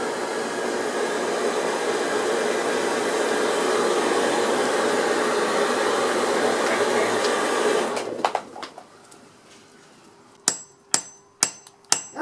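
Hair-dryer blower forcing air through a coal forge: a steady whoosh that fades out about eight seconds in. Near the end a hammer strikes a hot steel rod on a small anvil block, five ringing blows about two a second.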